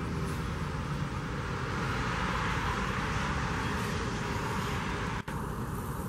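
The last of a Federal 2001-DC tornado siren's wind-down, a falling tone that fades out within the first half second. After it there is only a steady rushing background noise, which swells a little in the middle and cuts out for an instant near the end.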